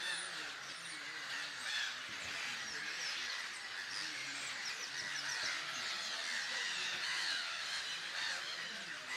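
Grey-headed gull breeding colony calling: a dense, steady chorus of many overlapping gull calls.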